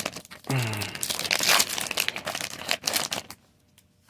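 Foil wrapper of a Pokémon TCG booster pack crinkling and tearing as it is opened and the cards are handled, a dense run of rapid crackles that stops suddenly a little after three seconds in.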